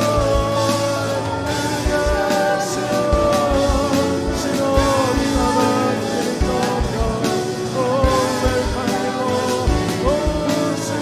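Live worship song: a man's voice sings long held notes into a microphone over electric guitar and an electronic drum kit keeping a steady kick-drum beat.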